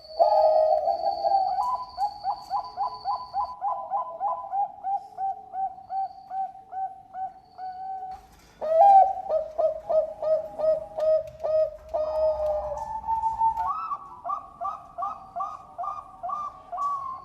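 Zebra dove (Bangkok-bred perkutut) singing: runs of short, rapidly repeated coos, about three a second. A fresh loud run starts about halfway through, and a higher-pitched run overlaps it near the end.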